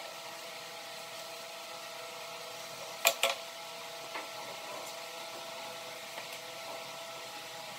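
Two sharp clacks in quick succession about three seconds in, from a steel rule and square being handled and set down on a pine board, with a lighter tap a second later. A steady hum with a few constant tones runs underneath throughout.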